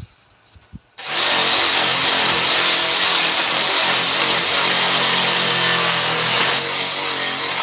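A few light knocks, then a power tool switches on about a second in and runs steadily, working wood.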